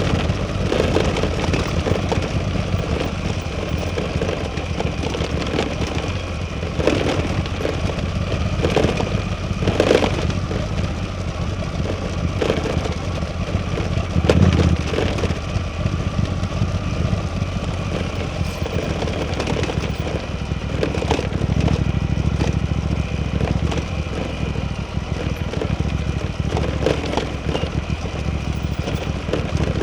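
Suzuki V-Strom 800DE's parallel-twin engine running steadily at low revs while riding, with scattered sharp knocks and crackles, the loudest about 14 seconds in.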